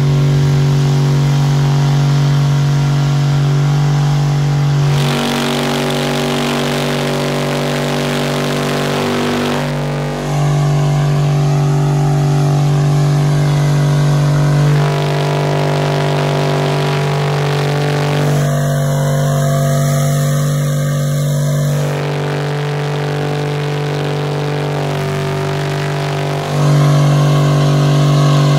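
Dodge Dakota's V8 held at steady high revs through a long burnout, its rear tyres spinning on the pavement under a hiss of tyre noise. The engine note holds one pitch but shifts abruptly every few seconds.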